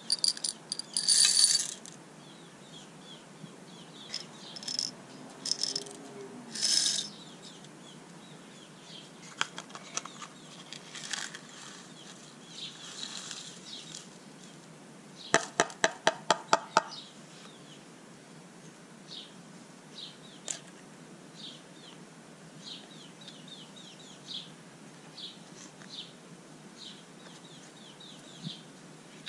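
Small plastic beads and sequins being dropped into a plastic tub of clear glue, making scattered clicks and clatters, with a quick even run of about eight clicks around the middle.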